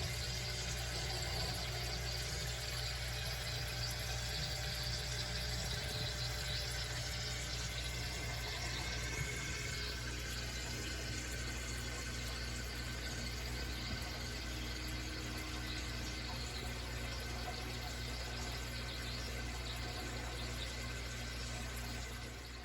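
Steady rushing noise like running or pumped water, with a low hum underneath; it stays even throughout.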